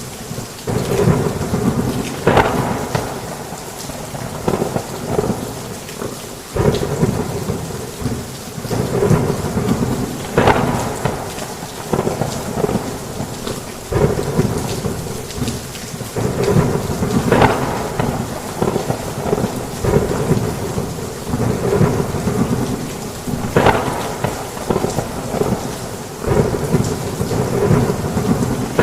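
Heavy rain falling on a roof with thunder rumbling, the rumbles swelling and fading every few seconds, several of them starting with a sharp crack.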